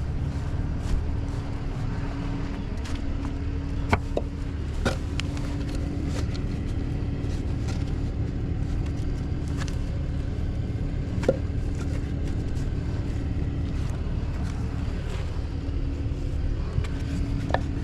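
Vehicle engine idling steadily with a low hum, broken by a few short, sharp knocks of blocks being set down under the truck, about four, two of them close together around four seconds in.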